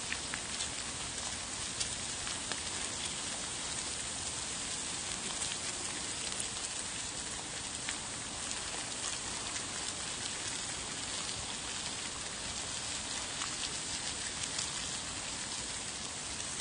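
Pork belly and mushrooms sizzling on a hot grill plate: a steady crackling hiss with scattered small pops.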